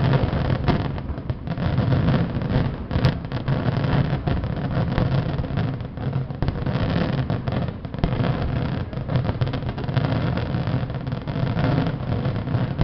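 Fireworks bursting in rapid, overlapping succession, with a continuous rumble of booms and crackle.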